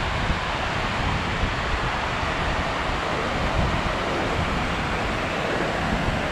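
The Terek, a fast, turbulent mountain river, rushing over its stony bed in a steady wash of water noise, with wind buffeting the microphone.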